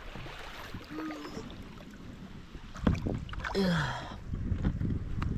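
Sit-on-top fishing kayak being launched and paddled off the beach: water sloshing and splashing around the hull with wind buffeting the microphone, growing heavier from about halfway. A sharp knock comes near the three-second mark, followed by a short falling grunt.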